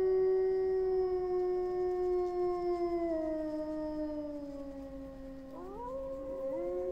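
Wolves howling: one long drawn-out howl held steady and then sliding slowly lower, joined about five and a half seconds in by a second howl that rises and overlaps it.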